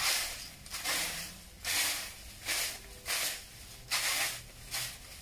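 A rake being dragged over the ground, scraping up leaves and yard debris in repeated strokes, about seven at a little under one a second.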